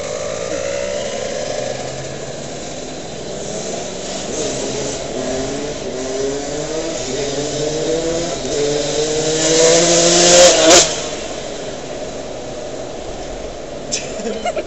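Vehicle engine accelerating through several gears, its pitch climbing and dropping back at each shift. It peaks loudest about eleven seconds in, then falls away suddenly as the throttle is closed. A few short rattles come near the end.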